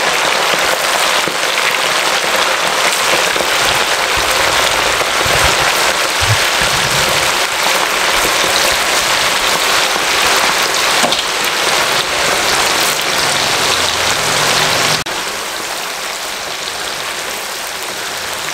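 Chicken pieces deep-frying in a wok of hot oil: a dense, steady sizzling that becomes somewhat quieter about three-quarters of the way through.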